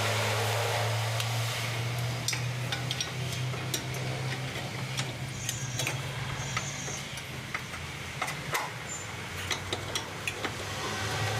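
Scattered light metallic clicks and taps of hand tools and parts being handled during workshop work, over a steady low hum.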